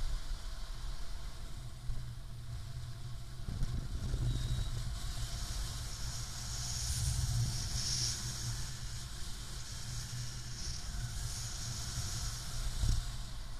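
Wind rushing over the microphone of a paraglider pilot's camera in flight: a steady low rumble of buffeting, with a high airflow hiss that swells and fades a few times.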